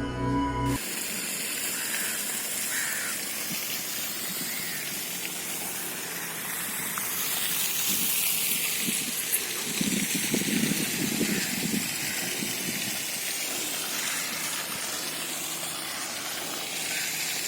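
Ambient intro music cuts off about a second in, followed by a steady hiss of background noise.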